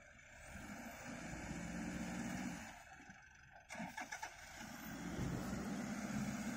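Four-wheel-drive ute engine revving under load in soft beach sand during a vehicle recovery. It comes in two stretches with a lull between them, and a quick run of sharp clicks sits in the lull.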